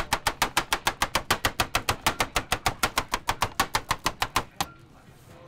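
Knife chopping guava on a cutting board in a fast, even rhythm of about eight to nine strokes a second, stopping near the end.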